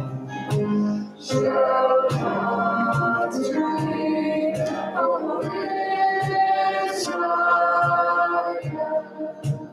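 Group singing of a worship song, men's and women's voices together, over instrumental accompaniment with a steady beat. It drops away near the end.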